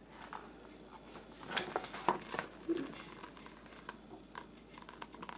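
Soft, scattered rustles and light taps of paper as a picture book is handled and its page turned, mostly in the middle of the stretch.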